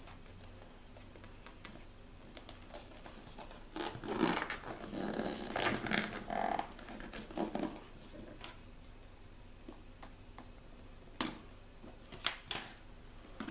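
Hands handling a small cardboard smartphone box: scratchy rustling and small knocks as it is turned and picked at, busiest in the middle, then a few sharp taps near the end.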